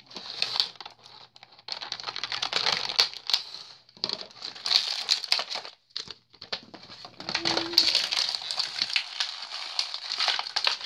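Toy packaging being handled: irregular crinkling and rustling of plastic and paper with many small clicks, pausing briefly about six seconds in. Near the end a folded paper collector's leaflet is being unfolded.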